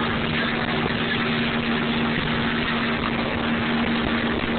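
Motorboat engine running steadily with the boat underway, a constant hum under a rush of wind and water noise.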